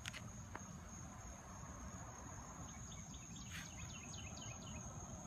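Crickets trilling steadily in one high unbroken tone over a low, steady rumble, with a short run of light clicks a little past the middle.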